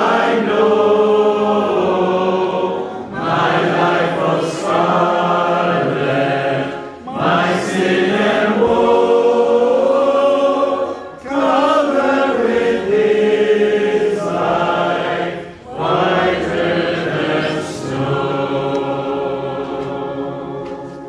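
Small congregation singing a hymn together, led by a strong man's voice, in phrases with short breaks between them. The final phrase is a long held note that fades away near the end.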